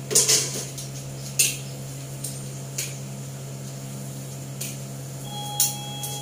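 Metal tongs clinking against a wok, about six sharp clinks with the loudest near the start, as pieces of potato omelette are turned in the frying oil. A steady low hum runs underneath.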